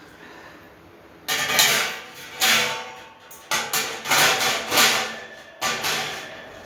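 Metal grill parts being knocked and clanked together during assembly: about six loud bangs with clatter and some ringing, starting about a second in.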